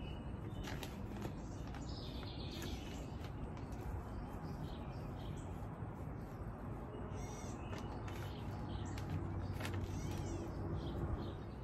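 Birds calling in short bursts over a steady low outdoor rumble, with occasional soft clicks and rustles of potting soil being pressed in around plants in a pot.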